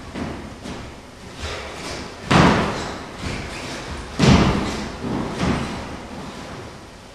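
Dancers' footfalls and stamps on a wooden studio floor, with two heavy thuds of landings about two and four seconds in and lighter steps between.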